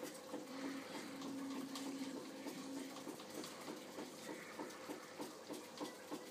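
Baby's doorway jumper creaking and ticking faintly as the baby bounces in it, about three ticks a second, over a faint steady hum.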